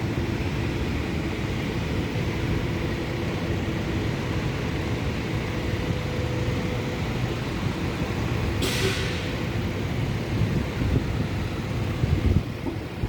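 Farana F17 crane's diesel engine running steadily, with a short sharp hiss of released air about two-thirds of the way through and a few low thumps near the end.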